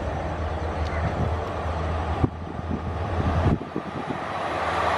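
Indian Railways WDP-4D diesel locomotive approaching with its EMD two-stroke engine running in a steady low drone, the train noise swelling toward the end. Two sharp knocks sound about two and three and a half seconds in.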